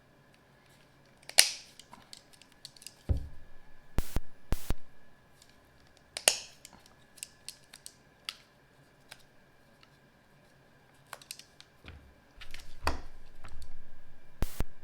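Leather hole punch being worked on pieces of leather for a cooler hinge: a series of sharp clicks and knocks as holes are punched, with handling noise in between.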